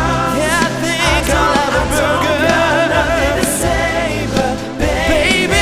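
Upbeat pop song: voices singing over a full band backing track.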